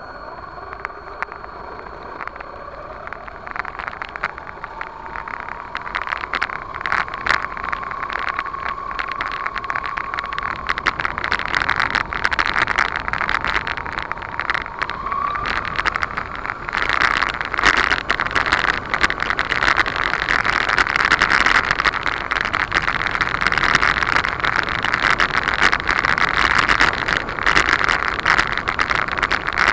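A 1/10 scale RC monster truck's motor and drivetrain whining as it drives over a dirt track, recorded by a camera mounted on the truck. The whine slowly rises in pitch, over dense crackling and rattling from the tyres and chassis on the rough ground. The sound gets louder and harsher from about halfway through.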